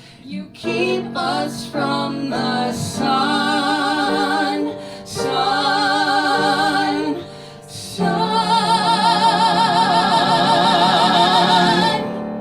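Musical-theatre song sung live: a phrase of short notes, then long held notes with a wide vibrato, the last one held for about four seconds and cut off just before the end, over a light instrumental accompaniment.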